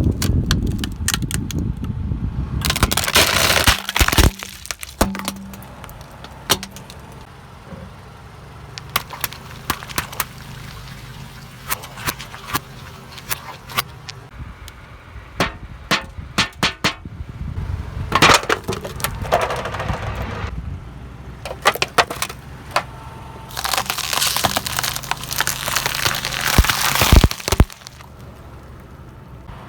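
Brittle objects being crushed under a car's tyres: many sharp cracks and snaps, with bursts of dense crackling and crunching, over the low hum of the car.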